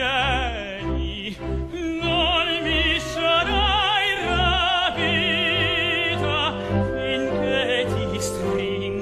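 Background music: a solo voice singing in operatic style with wide vibrato over orchestral accompaniment.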